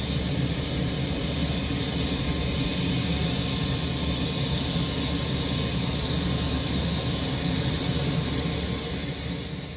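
Sikorsky UH-60A Black Hawk's twin turboshaft engines running steadily on the ground, with the rotors turning slowly.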